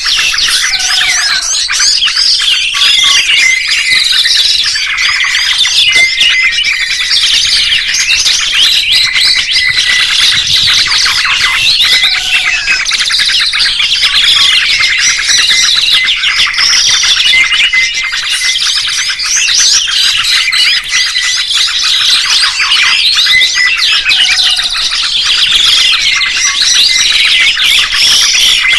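Many songbirds chirping and twittering at once in a dense, continuous chorus of high trills and whistles. The chorus seems to repeat about every eleven to twelve seconds, like a looped recording.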